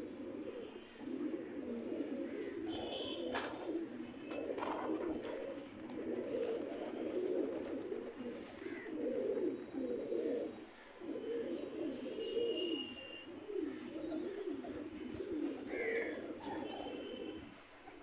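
A flock of domestic pigeons cooing, many birds' calls overlapping in a continuous low warbling.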